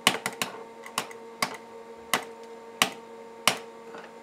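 A computer mouse button clicked over and over: a quick few clicks, then single clicks about every two-thirds of a second. A steady electrical hum runs underneath.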